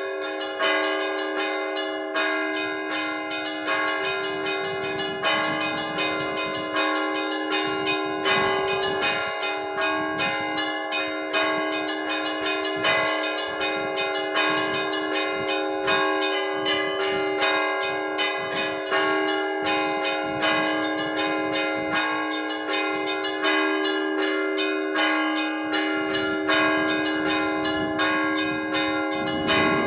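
Russian Orthodox church bells rung by hand by a bell-ringer: a quick, steady rhythm of strikes on the smaller bells over the long ringing of the larger ones. This is the peal that calls the faithful to the evening service.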